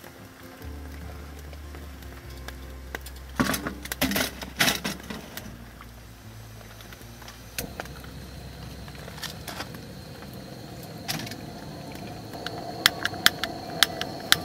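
Metal camp cookware and gas-stove parts being handled, clinking and rattling, loudest about three to five seconds in. Then a lit gas burner hisses under scattered sharp ticks and crackles that come faster near the end.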